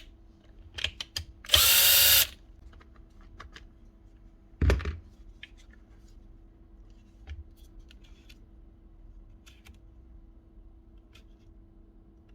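Parkside drill's motor spinning up briefly, under a second, about a second and a half in, while its forward/reverse change lever is not going fully in. A sharp knock follows a few seconds later, and small clicks of the trigger and lever being handled come and go.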